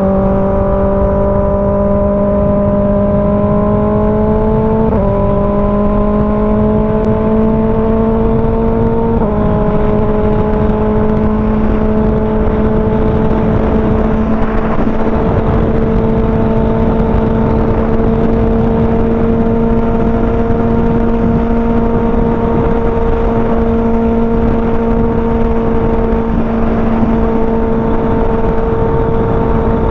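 Kawasaki ZX-6R inline-four sport bike engine pulling through the gears, its pitch climbing and dropping at upshifts about five and nine seconds in, then holding steady at cruising speed. Wind rushes underneath.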